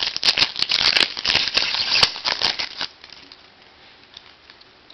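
Foil wrapper of a Topps Chrome football card pack being torn open and crinkled: dense crackling that stops a little under three seconds in.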